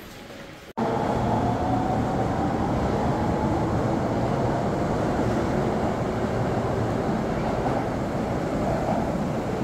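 Osaka Metro Tanimachi Line subway train pulling into an underground station and slowing to a stop: a steady loud rumble that starts abruptly about a second in, with a faint whine that sinks slightly in pitch as it slows.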